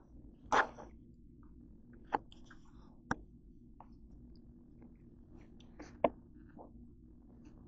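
A few scattered sharp clicks and taps, the loudest about half a second in and about six seconds in, over a faint low steady hum.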